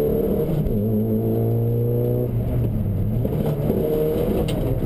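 Opel Astra F GSi rally car's engine running at speed, heard from inside the cabin. Its note is steady, wavers for a moment about halfway through, then settles again.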